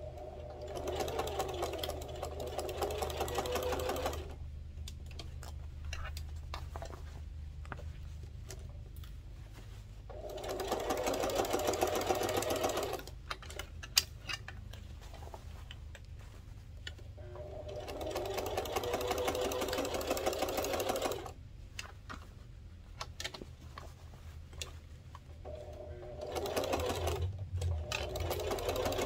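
Sewing machine topstitching cotton fabric in four runs of a few seconds each, stopping between runs as the fabric is repositioned. A single sharp click about halfway through.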